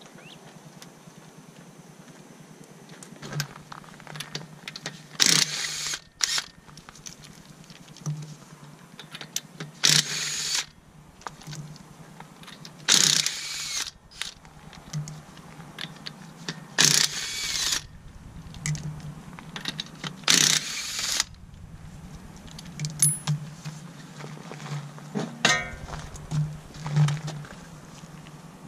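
Impact wrench loosening a car wheel's lug nuts: five short hammering bursts a few seconds apart, one for each nut. Near the end come lighter metallic clicks and ticks of hand tools.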